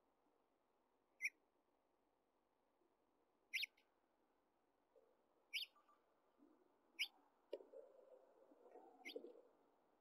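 House finch giving short, high chirp calls, about five of them spaced one to two seconds apart, faint. Soft low rustling comes in near the end.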